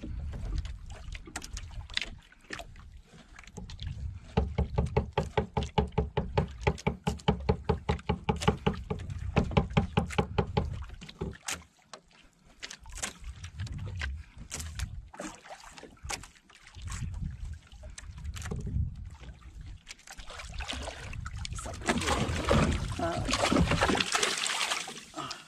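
Handline being hauled hand over hand from an outrigger boat, with a run of rhythmic pulls about three a second. Near the end a hooked yellowfin tuna thrashes and splashes at the surface beside the hull as it is brought in.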